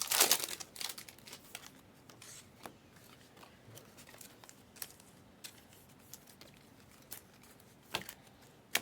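Foil trading-card pack wrapper crinkling and tearing open, then cards being handled with light sliding and tapping and a couple of sharp clicks near the end.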